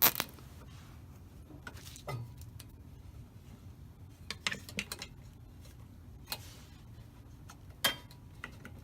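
Scattered light plastic clicks and rattles from large nylon zip ties being wrapped around a bar and pulled tight, with a few sharper clicks, one near the start and one near the end.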